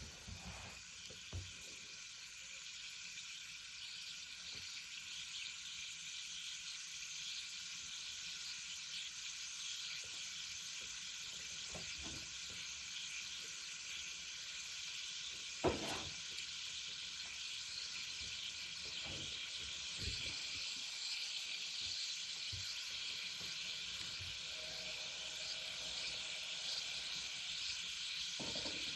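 Meat sizzling on a grill over a wood fire in a clay chimenea: a steady frying hiss that builds slightly, with occasional sharp pops, the loudest about halfway through.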